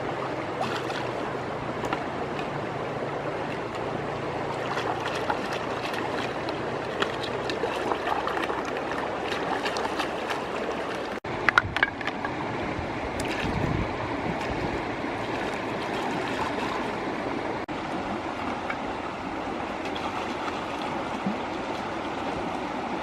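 River water flowing steadily. About halfway through, the sound briefly cuts out and there are a few sharp clicks or knocks.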